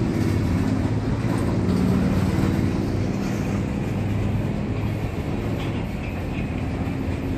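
A freight train's refrigerated cars rolling past close below, with a steady sound of steel wheels on the rails.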